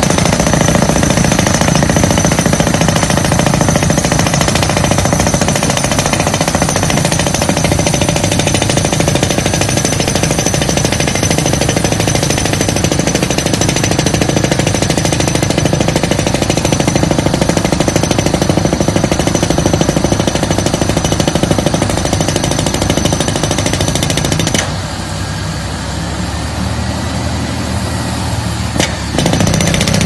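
Crawler-mounted drilling rig's percussive hammer pounding rapidly into gravel ground, over the running engine and air. About 25 seconds in the hammering stops and only a steadier engine drone is left for a few seconds. Then the hammering starts again.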